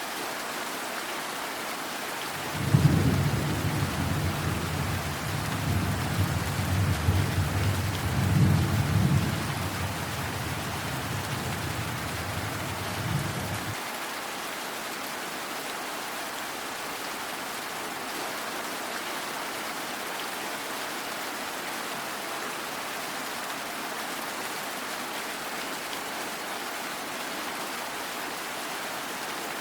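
Steady rain with a roll of thunder. The thunder breaks with a sharp crack about three seconds in, rumbles low for about ten seconds with a couple of louder swells, then cuts off suddenly while the rain goes on.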